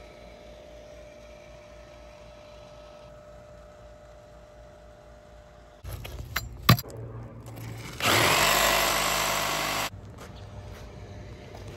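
Faint steady hum, then a few knocks and one sharp clack about six seconds in. About eight seconds in, an oscillating multi-tool runs loudly for about two seconds, cutting into a buried, rusted drain pipe, then stops suddenly.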